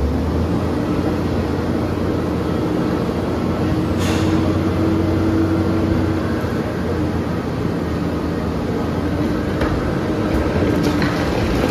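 Heavy machinery running with a steady, loud low drone and a humming tone above it, with one sharp knock about four seconds in. Near the end the first clatters of falling rock begin.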